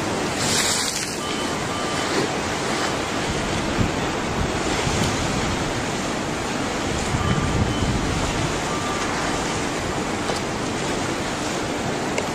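Tsunami seawater surging and churning, a steady rushing noise, with wind buffeting the microphone.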